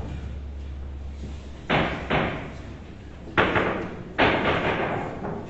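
Boccette balls striking on the billiard table: four sharp knocks, two close together about two seconds in and two more over the next couple of seconds, each with a short ringing tail.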